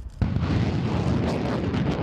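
Rocket launching from an M270 MLRS launcher: a sudden blast about a fifth of a second in, then the rocket motor's loud, crackling rush.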